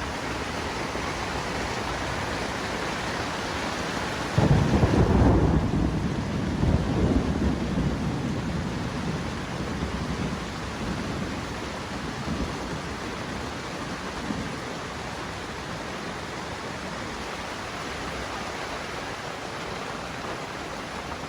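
Steady rain with thunder: a loud low rumble breaks in about four seconds in and rolls off over the next several seconds, with fainter rumbles after.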